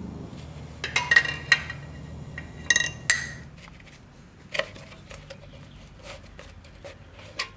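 Metal engine parts and tools clinking and knocking together as they are handled: a few ringing metallic clinks in the first three seconds, then lighter ticks and clicks.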